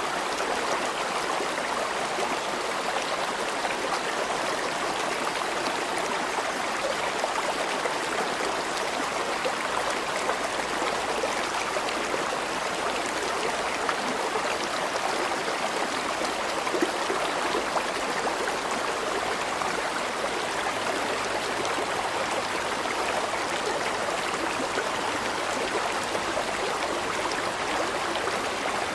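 River water flowing and babbling in a steady rush.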